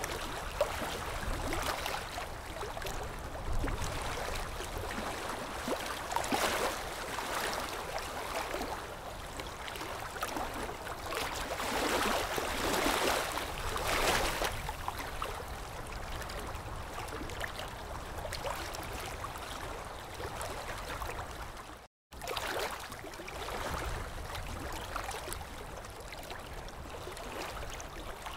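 Dental suction tube gurgling as it draws up water and saliva from the mouth: a steady wet rush that swells and fades, cutting out for a moment about two-thirds of the way through.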